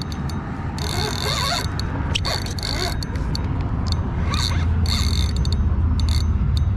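Penn 6500 spinning reel being cranked against a heavy hooked fish, a nurse shark, its gears whirring and clicking in short spells over a steady low rumble.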